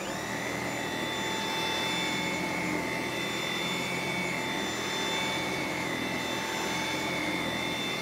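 Dyson V7 Animal cordless stick vacuum running steadily with its motorised brush head on carpet: a rush of air with a high, steady motor whine on top.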